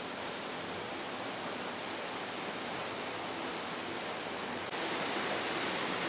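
Waterfall rushing: a steady hiss of falling water that jumps abruptly louder and brighter about five seconds in.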